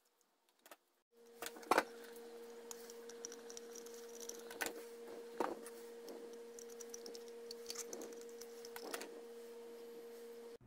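Soldering a rod into a metal jar lid: a few sharp clicks and faint crackling from the joint and the handled metal, over a steady low electrical hum that starts about a second in.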